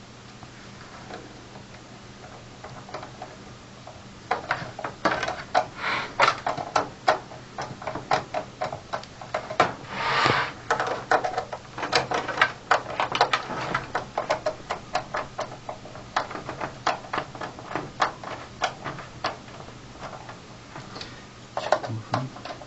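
Screwdriver driving the last screw into a PC case: a run of sharp, irregular clicks and scrapes, a few a second, starting about four seconds in and stopping shortly before the end.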